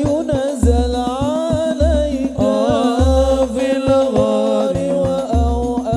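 A male lead singer drawing out a long, ornamented melodic line of an Arabic sholawat qasida, over banjari frame-drum percussion: sharp rebana strikes and a deep bass drum hitting about once a second.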